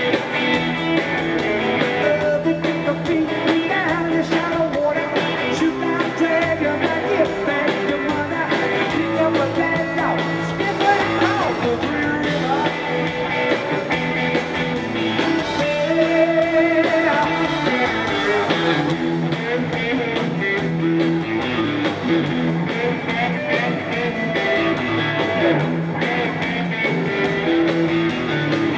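Live rock band playing, with electric guitar, heard from among the audience in a large concert hall.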